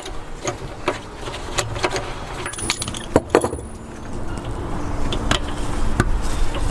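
Irregular metallic clicks and clinks of hand tools against small-engine parts while a part on a Honda GX120 is being tightened.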